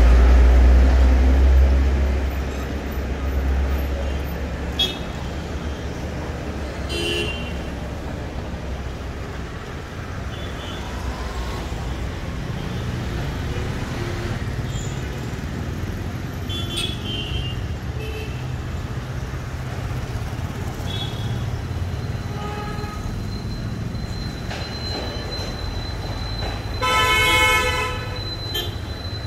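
Road-junction traffic: a steady din of engines and tyres, with a heavy vehicle's low rumble in the first few seconds. Short horn toots come and go throughout, and a longer, louder horn blast sounds near the end.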